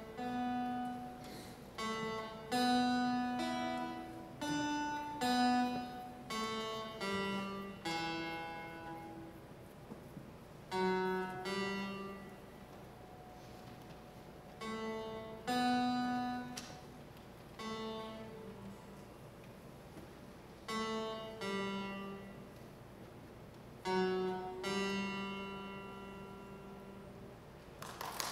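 Solo acoustic guitar played fingerstyle: a slow melody of single plucked notes, each left to ring, in short phrases separated by pauses. Applause breaks out at the very end as the piece finishes.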